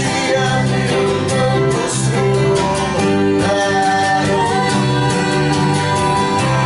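A song played on strummed acoustic guitar, with singing.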